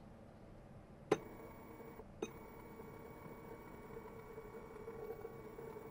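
A JBC solder feeder's drive motor starts with a sharp click about a second in, then whines steadily as its rollers push solder wire through the feed ferrule, with a second, smaller click about a second later. The wire is feeding through cleanly without jamming.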